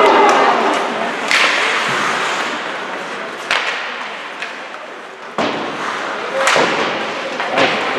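Ice hockey play in an arena: about five sharp knocks and slaps, irregularly spaced, from the puck and sticks hitting the boards and ice, echoing around the rink over crowd voices.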